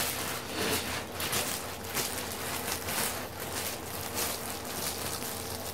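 Thin clear plastic cover film rustling and crinkling in irregular bursts as it is handled and peeled off a diamond painting canvas.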